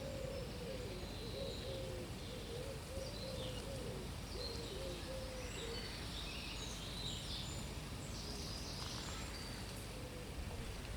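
Wind rumbling on the microphone, steady throughout, with small birds chirping and singing. For the first half or so a run of short, low, repeated calls from another bird sits under the chirps.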